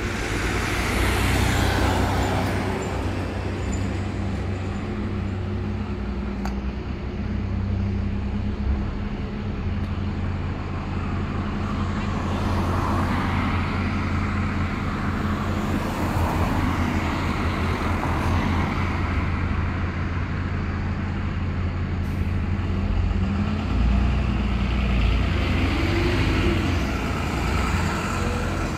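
Diesel engine of an Alexander Dennis Enviro400 double-decker bus running with a steady low hum as the bus moves slowly to a junction, turns out and pulls away. Road traffic noise swells and fades over it several times.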